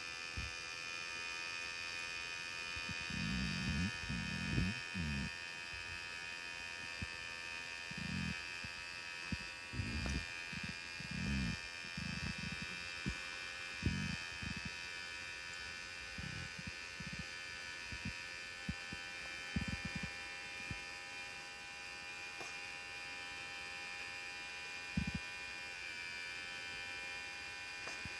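Portable nebulizer's small motor running with a steady electric buzz, with scattered low bumps from the device being handled.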